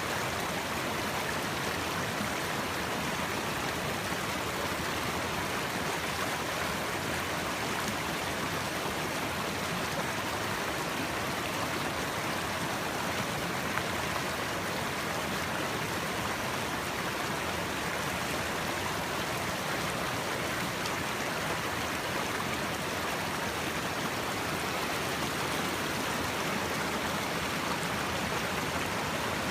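Small stream of running water, a steady, even rush with no breaks.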